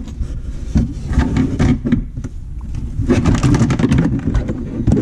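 Plastic trunk trim cover being handled and shifted into place, with a run of clicks and scrapes about three seconds in, over a steady low rumble.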